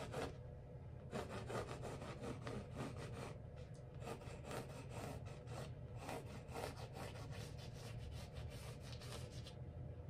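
Pencil scratching across a stretched canvas in quick repeated strokes as an outline is sketched, starting about a second in and stopping shortly before the end.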